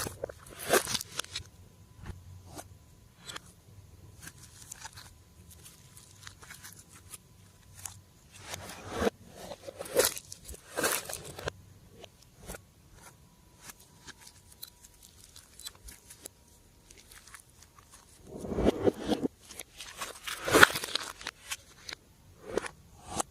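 Slime being kneaded and pressed by hand: scattered sticky clicks and small pops, with a few louder crunchy squishes lasting about a second each.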